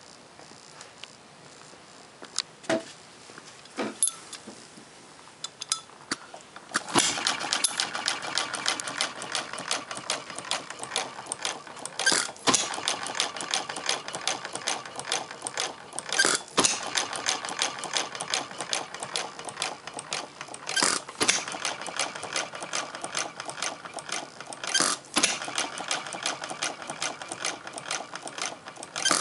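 Half-scale Olds hit-and-miss gas engine: a few isolated clicks, then about seven seconds in it starts running with a fast, steady ticking clatter, firing with a louder bang about every four to five seconds and coasting on its flywheels between firings, the hit-and-miss governor skipping the strokes in between.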